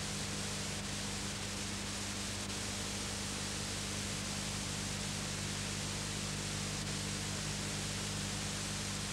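Steady hiss with a low electrical hum, the background noise of an old videotape recording.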